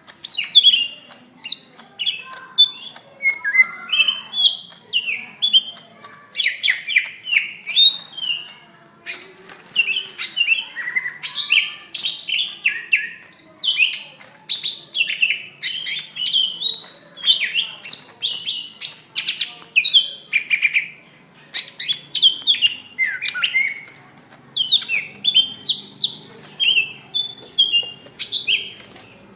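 Green leafbird (cucak ijo) singing in its fighting mode: a fast, unbroken run of loud, varied chirps and whistled phrases with only short gaps between them.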